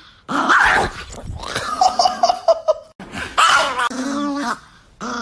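A man laughing hard in bursts. The laughter breaks off abruptly about three seconds in, then starts again.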